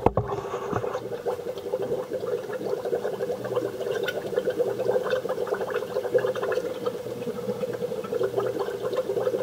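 Homemade EVAP smoke machine running: its hot nichrome wire bubbling in baby oil inside the metal canister, a steady crackling gurgle with a hum under it.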